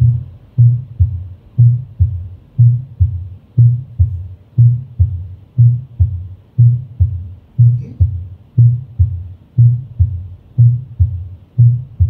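Simulated mitral stenosis heart sounds from a patient-simulator manikin, heard over the aortic area: a steady beat about once a second, each a sharp, loud first heart sound followed by the second, with no continuous rumbling murmur between beats.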